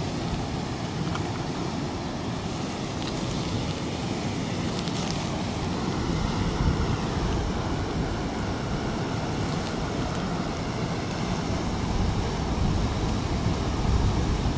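Water rushing out of a dam's gates in a steady roar of churning white water, with wind buffeting the microphone.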